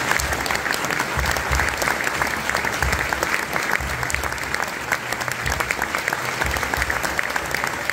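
Audience applauding steadily, a dense mass of clapping hands welcoming a snooker player who has just been announced.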